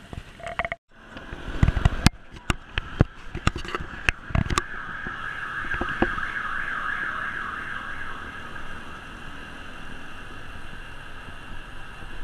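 Bicycle ride along a road with traffic: a run of sharp clicks and rattles with gusts of wind on the microphone over the first few seconds, then a steady high whirring for several seconds over constant road noise.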